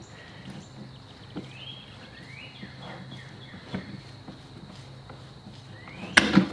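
Wrench working the spring-loaded top cap off a Suzuki DL650 V-Strom's conventional fork tube: a few faint clicks over a steady low hum, then a sharp clack about six seconds in as the cap comes free. Faint rising chirps sound now and then.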